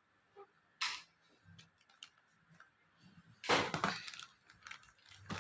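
Handling noises from unpacking: a short rustle about a second in, then a louder burst of rustling and light knocks a little past halfway, as packaging and plastic parts are moved about.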